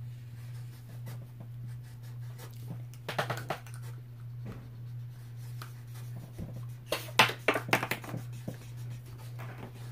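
Drawing tools scratching and tapping on paper, in two short busy spells about three seconds in and about seven seconds in, over a steady low hum.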